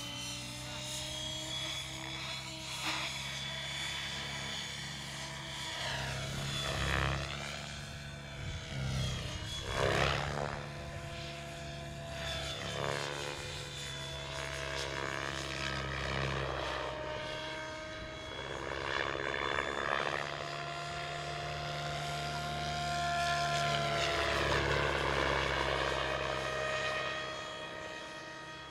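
Radio-controlled model helicopter flying hard 3D freestyle manoeuvres: a steady rotor and drive whine that shifts up and down in pitch, with loud rushing swells of blade noise several times as the rotor is loaded, the loudest about ten seconds in and again near the end.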